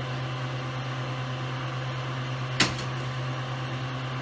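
A steady low hum, with one sharp knock or clack about two and a half seconds in.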